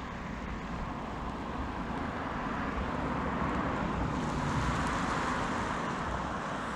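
A car driving past, its tyre and engine noise rising to a peak about four to five seconds in and then fading.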